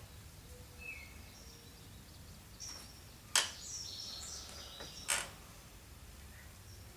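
Birds chirping over quiet outdoor background, with two sharp cracks about a second and a half apart midway through.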